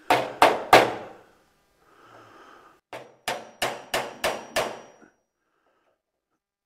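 Hammer blows, each with a short ringing tail: three quick strikes, then after a pause a steady run of six at about three a second.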